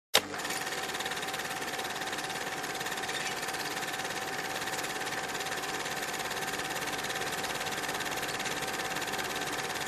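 Cine film projector running: a steady mechanical whirr and rattle with a faint steady tone through it, after a sharp click right at the start.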